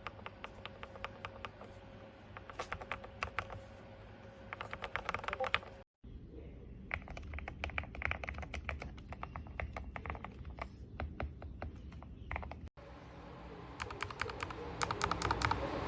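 Typing on a mechanical keyboard fitted with factory-lubed Gateron Pro Milky Yellow linear switches: runs of quick key presses in three stretches, broken twice by brief cuts.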